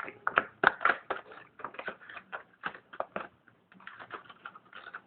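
Hands handling and opening the packaging of a small computer mouse: an irregular run of sharp plastic clicks and crinkles, loudest in the first second.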